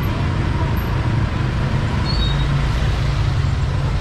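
Motorbike engines running steadily in a crowded market lane: a continuous low rumble under general street bustle.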